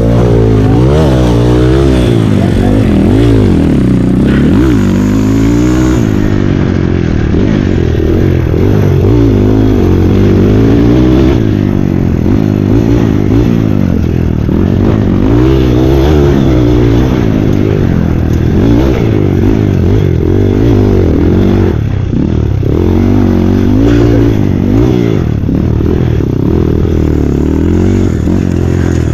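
Dirt bike engine revving hard, heard close up from the handlebars, its pitch climbing and dropping over and over as the throttle is worked around a motocross track.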